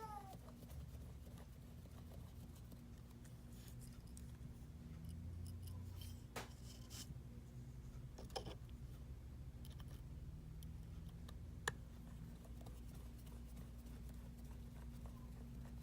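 Faint, scattered clicks and taps of small tools handling a phone during reassembly, a few seconds apart, over a low steady hum.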